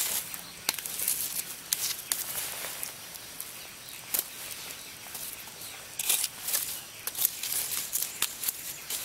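Wood campfire embers crackling, with irregular sharp pops and clicks over a faint steady hiss.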